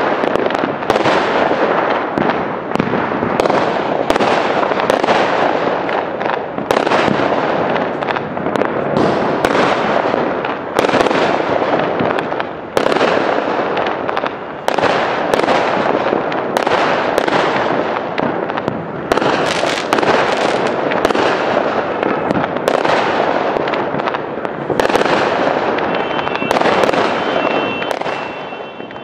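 Fireworks going off in quick succession, one sharp bang after another, each trailing off as the next begins, with no pause.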